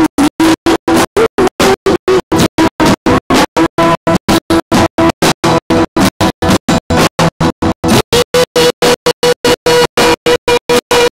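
Live stage music with a woman singing into a microphone over keyboard accompaniment. The sound cuts out completely four or five times a second, so the music comes through as a rapid stutter: an audio dropout fault in the recording.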